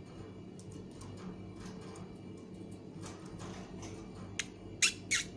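Caged pet birds, a peach-faced lovebird among them, making faint scattered ticks, then three short, sharp chirps in quick succession near the end, over a steady low hum.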